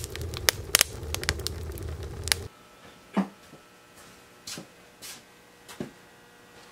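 Wood fire crackling and popping inside an open wood stove, over a low steady rumble, until the sound cuts off abruptly about two and a half seconds in. Quiet room tone follows, with four faint short sounds.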